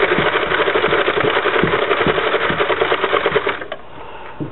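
Innovations plastic circular knitting machine cranked fast by hand: a rapid, steady clatter of its needles going round, which stops abruptly about three and a half seconds in.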